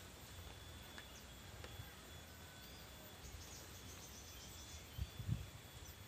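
Faint outdoor ambience: a steady high insect drone with a few faint short bird chirps. A couple of low thumps come about five seconds in.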